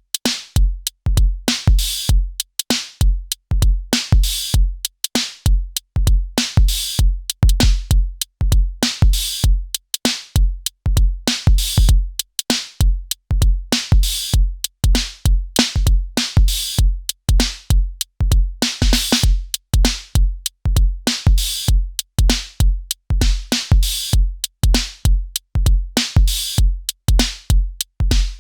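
Elektron Syntakt drum machine playing a steady electronic beat: a deep kick drum on a regular pulse, with crisp hi-hat and snare-like hits above it.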